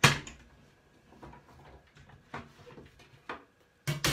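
Clicks and knocks from a hand-cranked die-cutting and embossing machine as an embossing folder and its plates are wound through the rollers: a sharp knock at the start, lighter clicks through the middle, and two louder knocks near the end.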